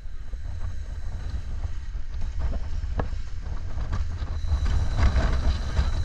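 Low steady rumble of a boat's engine with wind buffeting the microphone, and a few light knocks.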